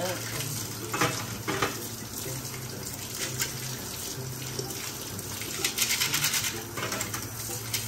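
Kitchen tap running into a stainless steel sink while a bunch of chopsticks is rinsed and rubbed together under the stream. Chopsticks clatter a couple of times about a second in, and again in a quick run of clicks around six seconds in.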